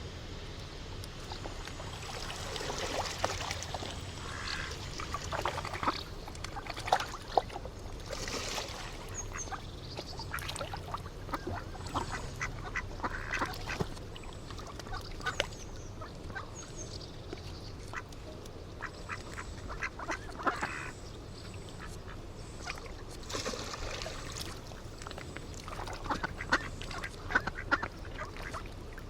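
Ducks quacking in many short, scattered calls, some louder than others, over a low steady background.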